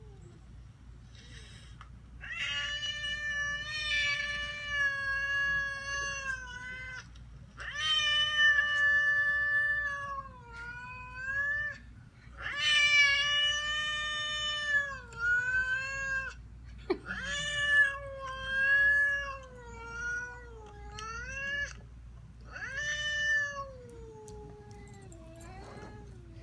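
Cat yowling: a series of long, drawn-out calls whose pitch bends up and down, the last ones sinking lower near the end.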